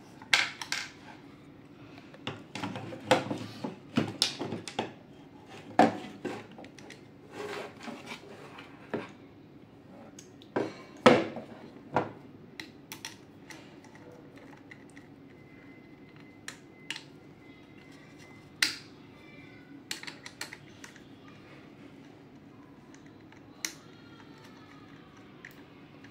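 Metal clinks, clicks and knocks of small parts and tools being handled while a vacuum cleaner motor is taken apart. They come thick and fast for the first dozen seconds, then only now and then.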